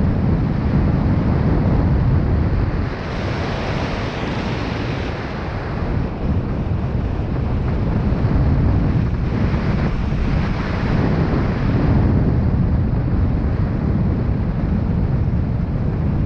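Wind buffeting the microphone: a loud, steady low rushing, with two swells of brighter hiss, one about three seconds in and one around ten seconds.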